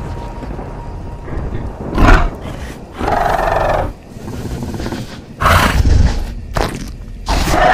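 Dinosaur sound effects: four roaring, growling calls, the first short and the loudest, the others longer and a second or two apart, over a low steady rumble.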